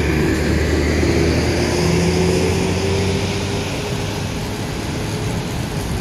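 Engine of a truck-mounted crane running steadily while it hoists a steel truss arch, with a faint tone that climbs slightly over the first few seconds.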